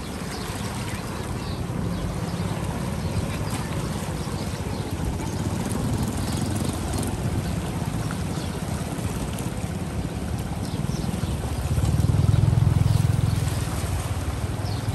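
Small engine running steadily, growing louder for about two seconds near the end.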